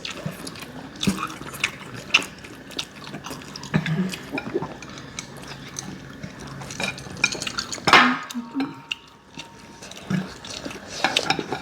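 Eating instant ramen noodles at the table: forks and chopsticks clicking against bowls and plates, with wet slurping and chewing. Many short clicks throughout, and one louder burst about eight seconds in.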